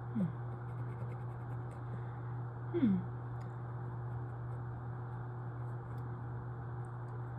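Steady low electrical hum and room hiss, with scattered faint clicks and two brief falling-pitch murmurs, one just after the start and one about three seconds in.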